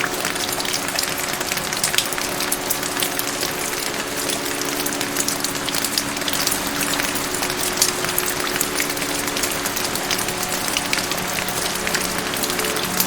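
Steady rain with a dense patter of individual drops, over a soft background of low held tones.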